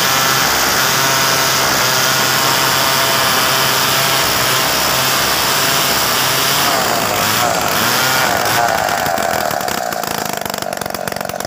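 Large two-stroke chainsaw running at full throttle, its bar ripping lengthwise through a mahogany log. About two seconds before the end the engine note steadies and gets a little quieter.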